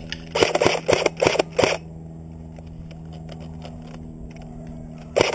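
Airsoft gun firing a quick string of about five single shots, roughly four a second. A second string of shots starts near the end.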